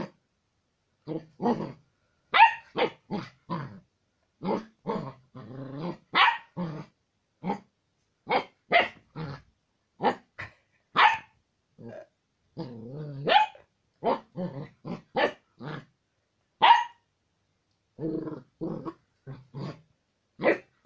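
Old English Sheepdog (bobtail) puppy barking and growling again and again at its own reflection in a mirror: quick runs of short barks broken by a few brief pauses.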